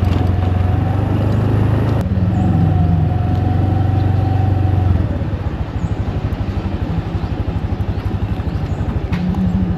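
A motor vehicle engine running, with a heavy low rumble that drops away about halfway through, leaving a fast, even pulsing.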